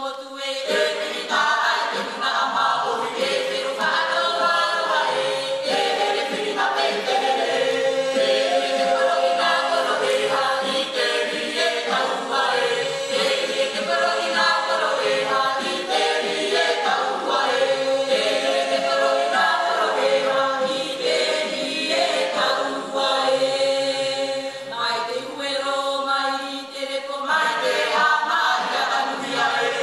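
Tahitian himene choir of men's and women's voices singing a cappella in layered parts, with a short dip about three seconds before the end and a fuller entry after it.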